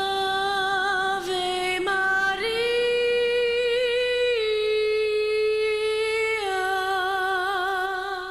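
A woman's voice singing unaccompanied, holding a slow line of long sustained notes with vibrato: a low note, a step up to a higher held note about a third of the way in, then back down to the low note, which fades away at the end.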